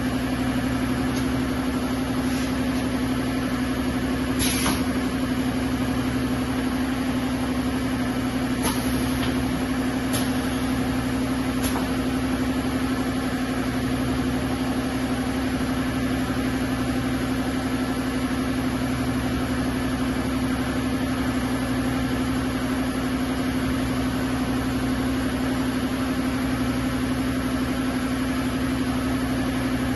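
Steady machine hum with one constant low tone, and a few light clicks between about four and twelve seconds in.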